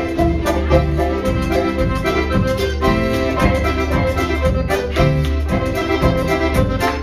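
Live string band playing with fiddle, banjo, mandolin and accordion over a steady snare and bass-drum beat.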